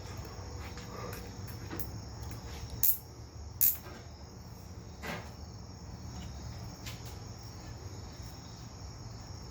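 Crickets chirring steadily over a low steady hum, with two sharp clicks a little before the middle and a softer one just after.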